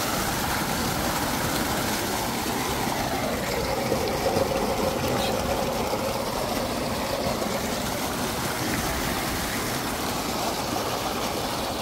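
Water from a 10 HP solar tube well gushing steadily out of its 5-inch discharge pipe and splashing into a masonry collecting tank.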